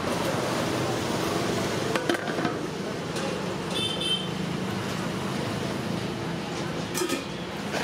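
Steady roadside traffic noise with faint voices. Sharp clinks of steel serving vessels come about two seconds in and again near the end, and a short high beep sounds about four seconds in.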